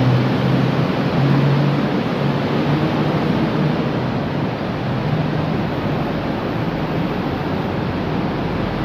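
Diesel engine of a double-decker bus pulling away, its low hum fading over the first few seconds. Under it runs the steady, loud noise of traffic in a covered bus terminus.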